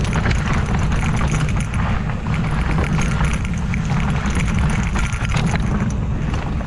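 Ibis Ripmo V2 mountain bike descending a steep dirt trail at speed: tyres rolling over rough ground and the bike clattering over rocks and roots, with a heavy rush of wind buffeting the microphone.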